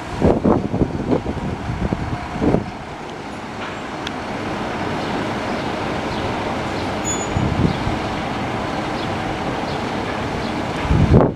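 Fire engine's diesel running steadily at idle in the station bay. Gusts of wind buffet the microphone in the first couple of seconds, and there is a brief louder rumble just before the end.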